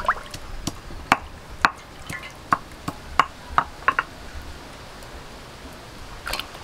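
Fish being washed by hand in steel bowls of water: a series of sharp drips, small splashes and light taps against the bowl, most of them in the first four seconds, with another short cluster near the end.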